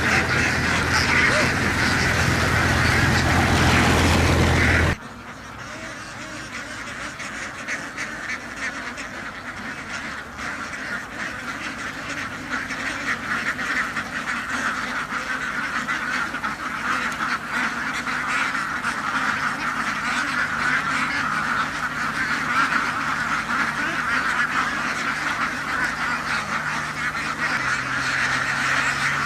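A large flock of domestic ducks quacking together in a dense, continuous chorus. In the first few seconds a low steady hum runs under it, and then the sound cuts off abruptly. The chorus returns quieter and gradually grows louder.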